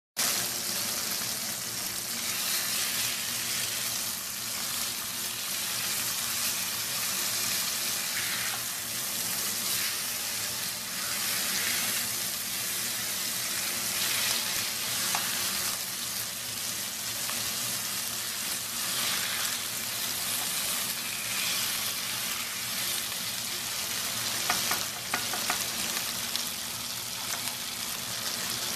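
Slices of calf's liver sizzling in hot oil in a frying pan, with a spatula moving and turning them. A few sharp clicks sound near the end.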